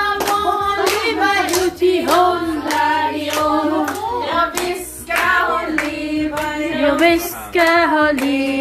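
A group of women and children singing a birthday song together while clapping their hands in time.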